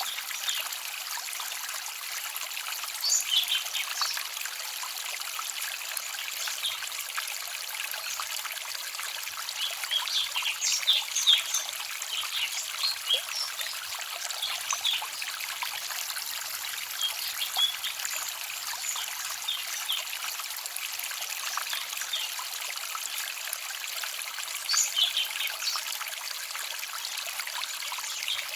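Small forest stream trickling and babbling steadily over stones. Small birds chirp now and then in short bursts of high notes, most at about three seconds in, around ten to thirteen seconds, and near twenty-five seconds.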